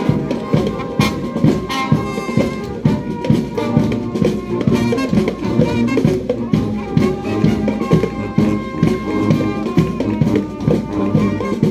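A military marching brass band playing a march: trombones, sousaphones and trumpets over a steady drum beat.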